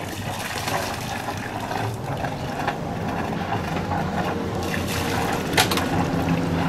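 Water trickling and splashing, over the low steady hum of a sailing yacht's engine idling. The hum grows stronger in the second half.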